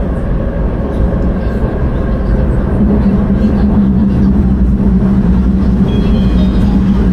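Wuhan Metro Line 6 train running, heard from inside the carriage: a steady low rumble of the wheels on the track. About three seconds in, a strong low hum sets in and the sound grows slightly louder.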